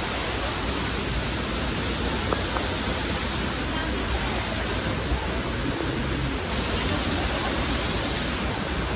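Busy shopping-mall ambience: a steady rushing noise with a murmur of many voices.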